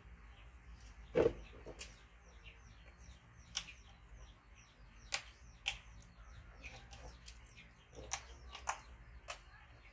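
Scattered light taps and knocks from a young macaque moving its grip on a bamboo wall and plastic toy wheels, the loudest about a second in. Faint bird chirps are heard throughout.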